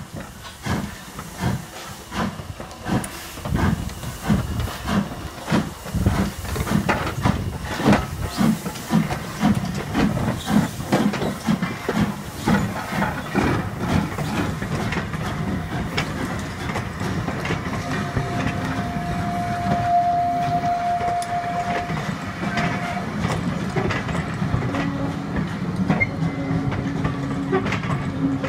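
Steam tank locomotive No. 24 Calbourne, an O2 class 0-4-4T, pulling away with a train of coaches. Its exhaust beats quicken as it gathers speed, then give way to the steady clatter of coach wheels over the rail joints. A steady high tone sounds for a few seconds about two-thirds of the way through.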